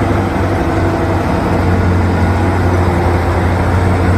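Heavy vehicle engine running steadily, a low even hum: an engine sound effect that starts and cuts off abruptly.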